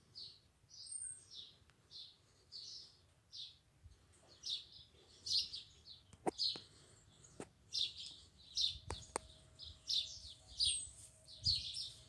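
A male common blackbird giving short, high chirping calls over and over, two or three a second, growing louder and closer together about four seconds in. A few sharp clicks midway.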